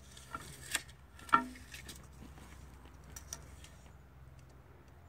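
Handling noise from the camera being picked up or moved: a few light clicks and knocks, the loudest a sharp knock about a second and a half in, then a softer click later, over a low steady hum.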